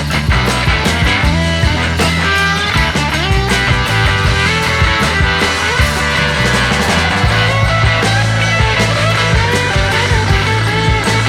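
Background music: rock with electric guitar and a steady beat.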